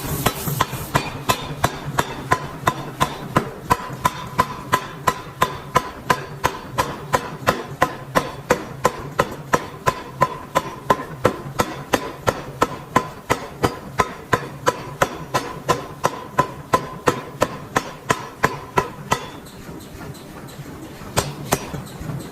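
Rapid, evenly spaced hammer blows on metal, about three a second, each with a ringing tone, stopping near the end with one last strike after a short pause.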